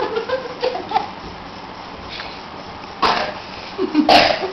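A small child babbling and giggling in short bursts, with two sudden sharp noisy sounds near the end.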